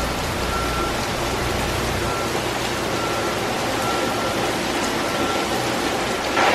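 Heavy rain falling in a steady downpour, with a low rumble that dies away about two seconds in.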